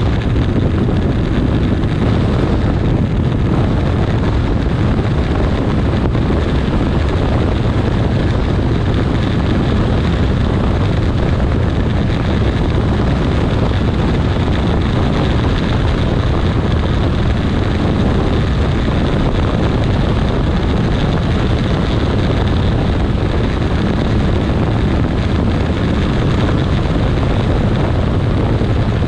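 Kawasaki 1400 Concours's inline-four engine running steadily at cruising speed, with wind rushing over the microphone.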